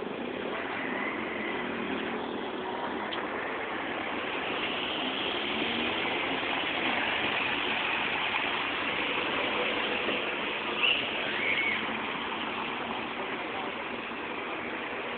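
City street ambience: a steady rushing noise of passing traffic, with two short high chirps about eleven seconds in.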